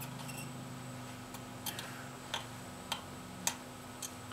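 Light, irregular ticks, about seven of them roughly half a second apart, over a steady low hum.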